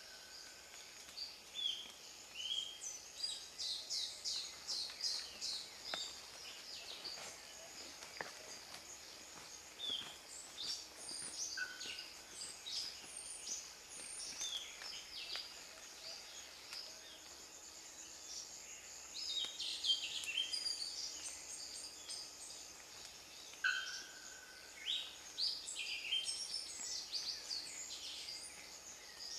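Male Brachycephalus pitanga pumpkin toadlet calling: runs of short, high-pitched notes repeated several times a second, coming in bouts. Other forest callers sound behind it, including a steady high buzz and a few lower whistled notes.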